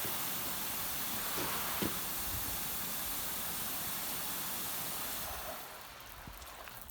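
Karcher K5 pressure washer on its highest setting, spraying water through its rotating patio cleaner attachment with a steady hiss that fades away over the last second or so.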